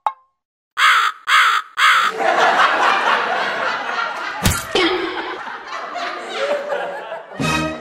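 Laughter sound effect: three short 'ha' bursts, then a longer run of laughter, with a sharp knock about four and a half seconds in.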